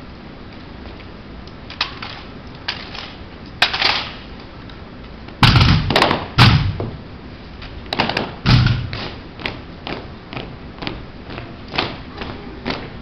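Exhibition drill rifles and boots on a hard floor: irregular sharp thumps and clacks of rifles being slapped, spun and grounded, and of heel stomps. The heaviest thumps come in a cluster about five and a half to six and a half seconds in and again near eight and a half, then a quicker run of lighter taps.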